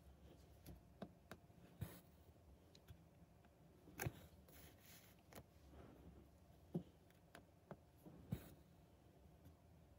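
Faint, scattered clicks of a needle pricking through stiff 18-count Aida cloth, with a brief swish of embroidery floss drawn through the fabric about four seconds in.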